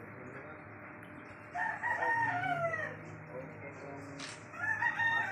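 A rooster crowing twice: a long crow about one and a half seconds in, falling in pitch at its end, and a shorter crow near the end.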